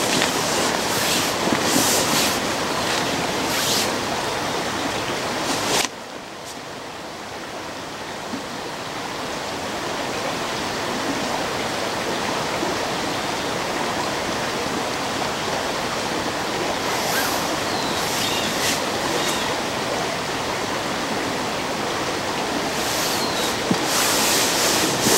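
Steady rushing outdoor noise that drops suddenly about six seconds in and slowly builds back, with a few brief rustles of hammock fabric as a person shifts around in the bridge hammock.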